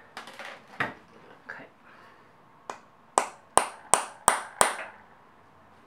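Hammer tapping a centre punch on a broken M6 bolt in a motorcycle engine casing, to mark its centre for drilling: six sharp metallic taps, about three a second, starting about halfway in, after a few soft knocks as the punch is set in place.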